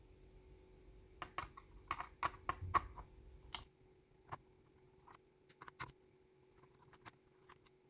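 Irregular light clicks and taps of small parts being handled while an old General Electric radio alarm clock is worked on: a quick run of clicks in the first half, sparser ones after, over a faint steady hum.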